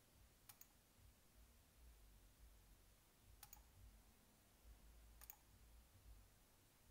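Faint computer mouse clicks, three quick pairs a few seconds apart, over near-silent room tone.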